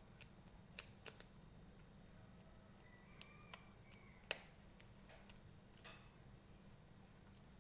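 Near silence with a few faint, sharp clicks and taps of small plastic toy pieces being handled and fitted together, the loudest a little over four seconds in.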